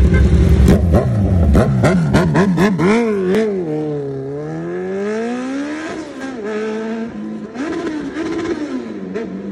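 Superbike engine revved hard in a run of quick throttle blips with sharp cracks from the exhaust, then pulling away through the gears, its pitch falling and rising with each shift as it moves off and grows fainter.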